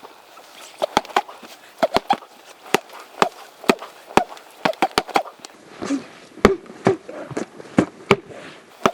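Sharp knocks of punches landing on a striking-speed training machine, in quick irregular bursts, often two or three hits close together.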